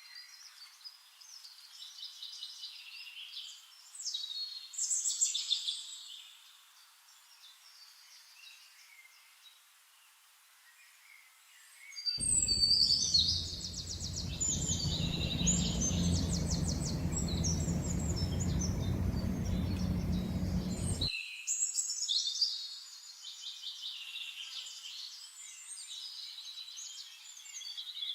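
Small birds chirping and trilling in quick repeated high notes. About twelve seconds in, a steady low rumble starts abruptly and cuts off just as abruptly some nine seconds later.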